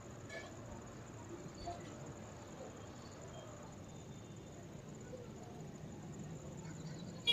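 Faint, steady, high-pitched insect chirring over low background noise, with a sharp click at the very end.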